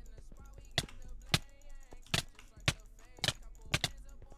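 Computer mouse and keyboard clicking: about seven separate sharp clicks, roughly one every half second.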